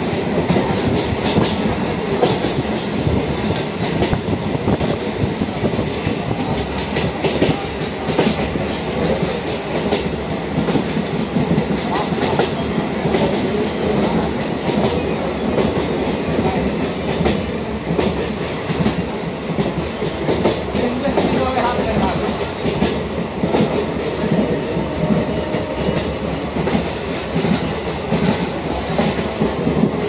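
Passenger train running along the track, heard from on board: a steady rumble and clatter of the wheels on the rails, with many small clicks throughout.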